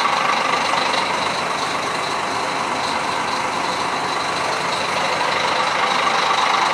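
Steady running noise of an idling diesel bus engine, heard inside the bus's open luggage hold, with a faint steady high whine over it.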